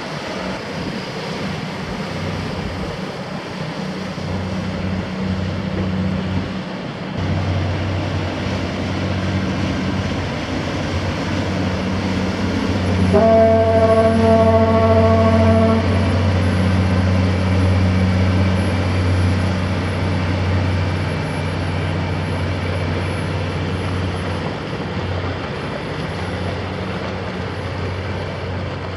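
Inland cargo ship's horn giving one long blast of about three seconds, about halfway through, over the steady low drone of a vessel's diesel engine, which grows louder from about seven seconds in.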